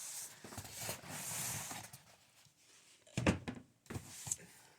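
Cardboard packaging being handled and opened: a rustling, scraping noise for about two seconds, then a few sharp clicks and knocks.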